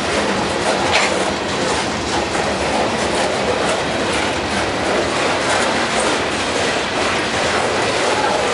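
Freight train of open-top hopper cars rolling past close at trackside: steady rumble and clickety-clack of steel wheels over the rail joints, with a brief louder clank about a second in.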